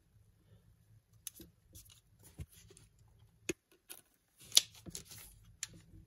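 Scattered small clicks and scrapes of a manual-focus lens on a Nikon adapter being handled and fitted to a Nikon D3's bayonet mount. One sharp click about four and a half seconds in is the loudest.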